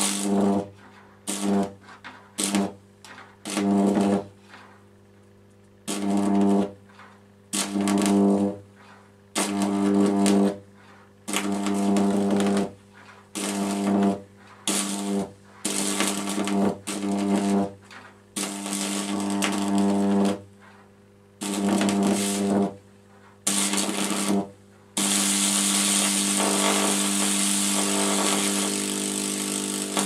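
High-voltage arc from a microwave oven transformer buzzing through a charred orange each time the probe touches it: a string of short, loud buzzing bursts, each a second or less, then a continuous arc over the last five seconds. A faint steady hum comes from the transformer between bursts.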